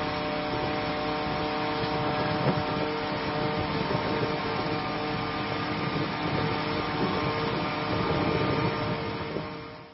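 Fire engines running their pumps to drive a simultaneous water discharge through many hoses: a steady mechanical drone with the rush of the water jets. It fades out near the end.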